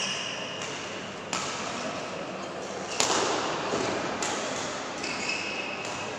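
Badminton rally in a large hall: sharp racket strikes on the shuttlecock every second or so, each ringing on in the hall, with high squeaks from court shoes near the start and again near the end.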